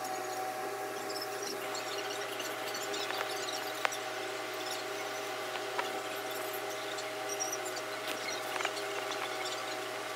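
A steady electrical hum with a few short clicks and some rubbing, as the phone camera on the floor is handled and moved.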